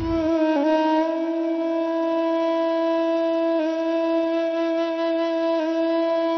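Background score: one long note held on a wind instrument, steady in pitch, dipping briefly a few times.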